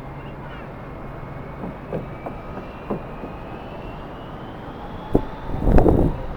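Jet airliner engines running with a thin whine that rises slowly in pitch, over steady wind noise. A few light knocks, then a strong gust buffets the microphone near the end.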